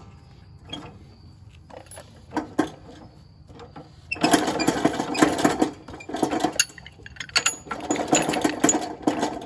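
A few scattered clicks of metal hardware, then a ratchet wrench clicking rapidly in two spells of about two seconds each while a bolt on the blower's handle is tightened.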